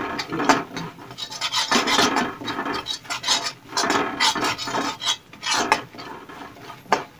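Metal spatula scraping and stirring besan (gram flour) roasting in oil in a metal kadhai: repeated rasping strokes against the pan. The besan is being roasted until it releases its oil.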